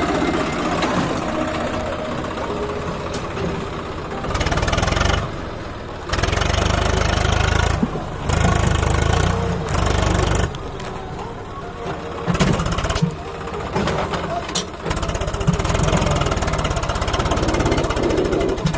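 Swaraj 744 FE tractor's three-cylinder diesel engine working hard under load as it pulls a fully loaded trolley over soft ground. It rises to louder surges that last a second or two, several times over.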